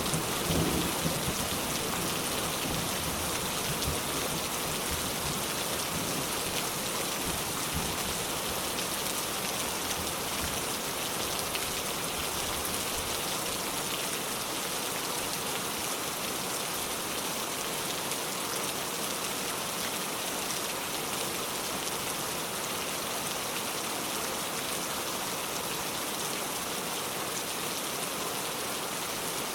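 Steady rain falling, an even hiss of drops on surfaces. The low rumble of a thunderclap dies away in the first couple of seconds.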